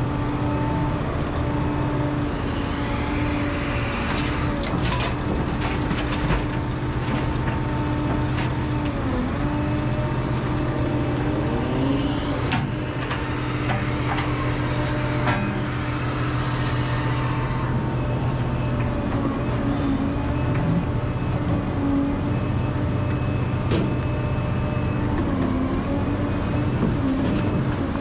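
Liebherr R976 crawler excavator working: its diesel engine and hydraulic pumps run steadily, the pitch dipping briefly a few times as the boom and bucket move under load. A few clanks and knocks from the bucket and the steel are heard now and then.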